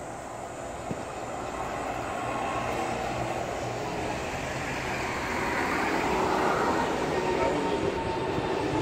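Jet aircraft passing low overhead: a broad rumble that grows steadily louder as it approaches.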